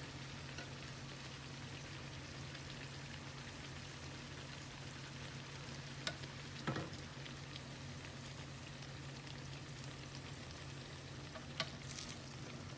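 Guyanese bakes (fried dough) sizzling in a pan of hot oil, with a steady crackle and a few brief clicks about six seconds in and again near the end.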